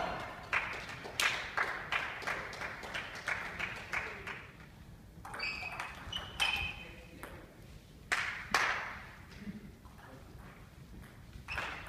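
Celluloid-style table tennis ball clicking back and forth off rubber-faced bats and the table top in fast rallies, echoing in a gymnasium, with a lull between exchanges.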